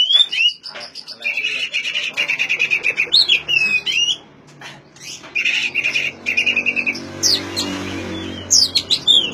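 Oriental magpie-robin (kacer) singing: two long runs of fast repeated rattling notes, broken by loud swooping whistles that rise and fall, with a cluster of whistles near the end.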